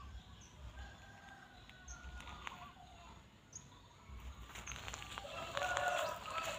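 Rooster crowing, a long crow building to its loudest near the end, with a fainter call about a second in.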